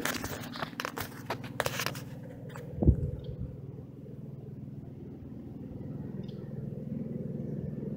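Clicking and scraping of the hand line and gear being handled during a cast from a canoe, with one dull thump about three seconds in. A low steady drone runs underneath once the handling stops.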